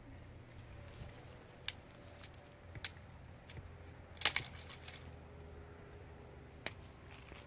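A few separate sharp clicks and knocks over a faint steady hum, the loudest a quick cluster about four seconds in.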